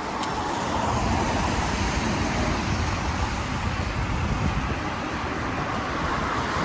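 Steady rushing noise of a bicycle riding over a wet path: tyres hissing through water on the surface, with wind rumbling on the microphone.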